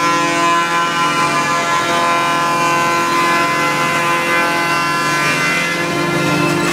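5-axis CNC wood router running, a steady whine with several held tones.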